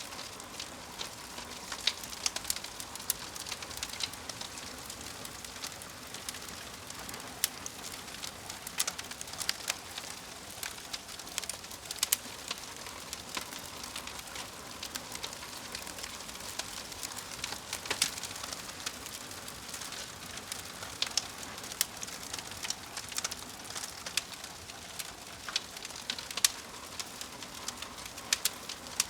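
Wood fire crackling: frequent sharp pops and snaps over a steady soft hiss.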